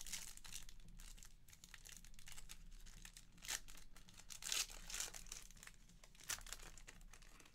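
A Panini Revolution basketball card pack's wrapper crinkling as it is handled and torn open, with a few louder crackles and rips in the second half.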